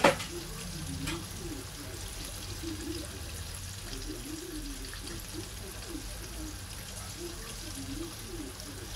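Battered calamari deep-frying in a pan of hot oil: a steady sizzle and crackle of bubbling oil. A sharp click comes at the start and a lighter one about a second in.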